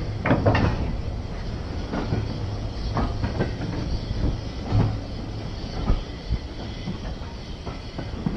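Railway coaches of a steam-hauled train rolling along, heard from on board: the wheels click and knock irregularly over rail joints, above a steady low rumble.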